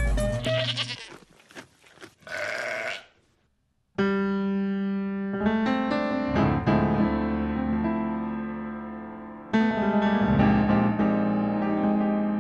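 A goat bleating twice as the end of a title jingle, then a short silence. After that a grand piano plays slow, sustained chords, with a fresh chord struck a little past halfway.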